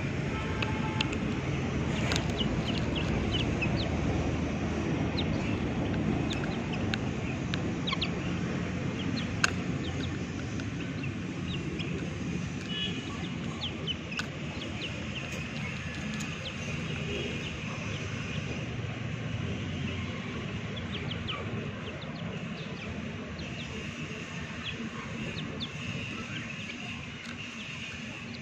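Chicks peeping: many short, high cheeps that slide downward in pitch, repeated throughout, over a steady low rumble that is louder in the first half. One sharp tap comes about nine and a half seconds in.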